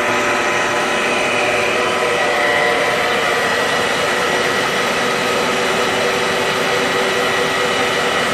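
Sumori Espanza SP2114 conventional metal lathe running steadily at its top spindle speed of 2000 RPM: an even machine hum with several held tones over a hiss.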